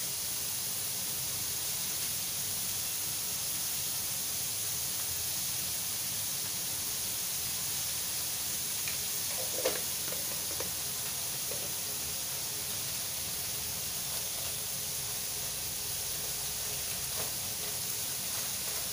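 Vegetables sizzling in a hot wok, a steady hiss, with a few scrapes and taps of a metal spatula against the wok; the sharpest tap comes a little before halfway.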